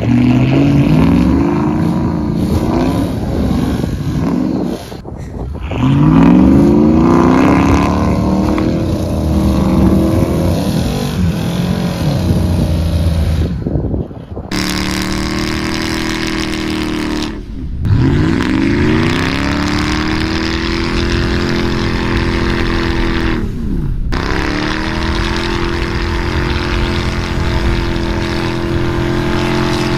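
Lifted pickup truck engine revving hard, its pitch climbing and then holding high for long stretches as it drives through deep snow. The sound is cut off abruptly and restarts several times.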